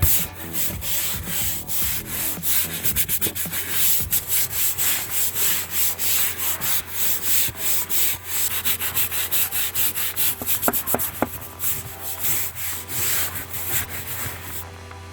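A stiff brush scrubbing a boat's hull in quick, repeated back-and-forth strokes, with a few short squeaks about ten seconds in. The scrubbing is to clear growth off the bottom, and it stops shortly before the end.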